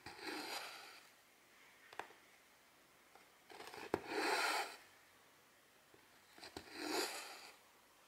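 Silk embroidery thread being drawn through 11-count cross-stitch fabric in three short swishes, each under a second, with sharp little clicks of the needle going through the cloth in between.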